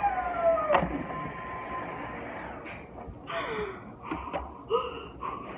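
A young person's voice: a long falling vocal cry ending with a sharp click just under a second in, then several short breathy gasps and another brief falling cry.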